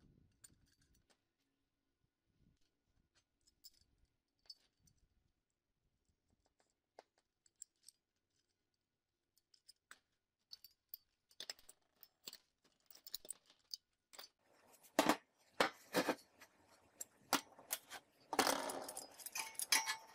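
Steel flat bar and square-tube pieces handled on a workbench and metal frame: scattered faint clicks at first, then about halfway through a run of sharp metal clinks and knocks that grows louder, with a spell of scraping near the end.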